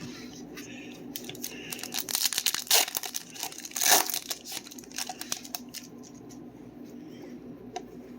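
Foil trading-card pack wrapper crinkling and tearing, in a dense spell of crackles that peaks twice in the middle before settling.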